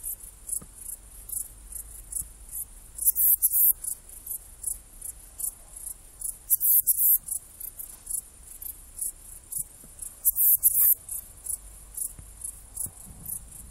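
Saddle-backed bush-cricket (Ephippiger ephippiger) stridulating: a run of short, very high-pitched chirps, a few a second, with louder clusters every three or four seconds.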